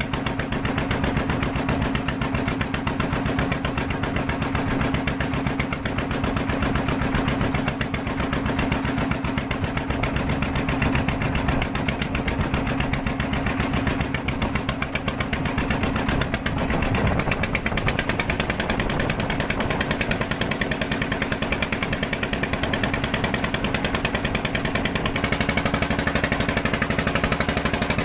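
Small engine running steadily, with a fast, even chugging pulse and a low steady hum.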